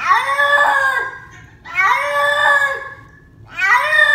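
Wet cat yowling loudly in protest at being bathed: three long drawn-out yowls, each rising then falling in pitch, with short pauses between.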